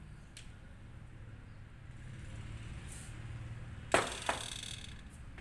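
Two sharp clinks about four seconds in, a third of a second apart, from the siphon coffee maker's glassware being handled, over a faint low hum while the brewed coffee draws down through the filter into the lower bulb.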